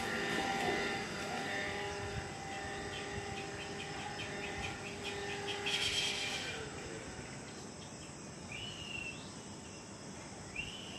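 Outdoor background: a distant engine drone fading away over the first few seconds, a run of rapid insect-like ticking chirps, and two short whistled calls that rise and then fall, like a bird's, near the end.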